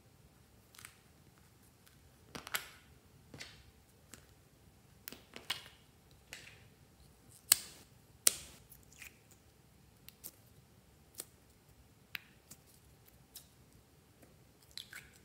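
Small plastic slime tubs clicking and tapping as they are handled and their squishy-toy lids pulled off, in scattered sharp clicks; the loudest two come about halfway through.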